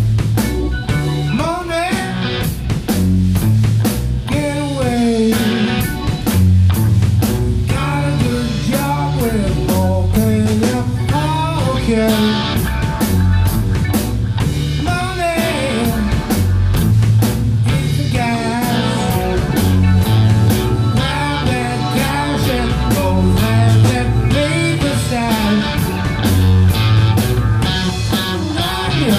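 Live rock band playing: a man singing over electric guitars, bass and a drum kit keeping a steady beat.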